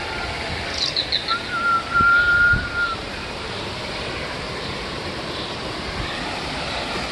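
A few quick high chirps, then one long, steady whistle of about a second and a half, over a steady wash of outdoor background noise.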